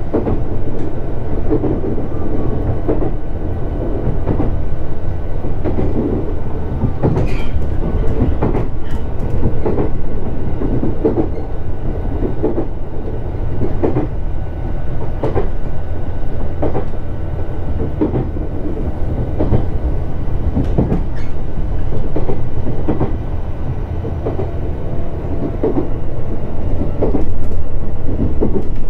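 Shinano Railway SR1 series electric train running at speed, heard from inside the car: a steady low rumble with a few steady tones, and the wheels clicking over rail joints a little more than a second apart.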